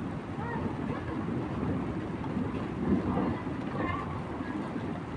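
Low rolling rumble of thunder from a thunderstorm, with wind buffeting the microphone; it swells briefly about three seconds in.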